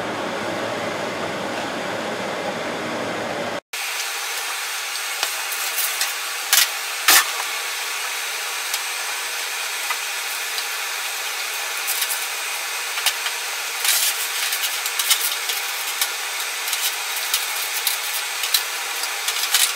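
A steady hiss that drops out briefly about four seconds in and comes back thinner, with scattered light knocks and clicks over it from a wooden mold and a metal baking sheet being handled and pressed.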